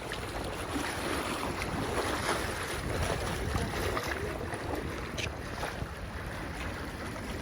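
Steady wind noise buffeting the microphone outdoors by water, with a few faint clicks.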